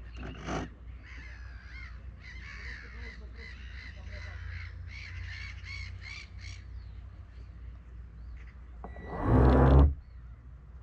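Harsh, crow-like bird calls in quick repeated runs over the low, steady hum of a radio-controlled bait boat's motors. Near the end a loud rush of noise lasts about a second.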